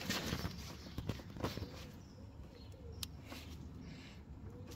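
Clicks and rustling of rubber hose and plastic connector being handled and pressed into a clip in a car's engine bay. A pigeon coos in the background, one phrase in the middle and another near the end.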